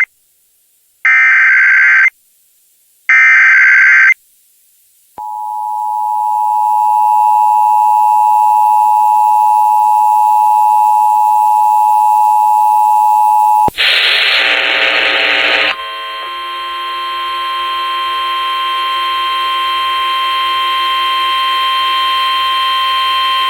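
Emergency Alert System tornado warning over AM radio. First come the last two of the three SAME header data bursts, shrill warbling chirps about a second long each. The steady two-tone EAS attention signal follows for about eight seconds, then a harsher, buzzier steady tone with several pitches that lasts about ten seconds.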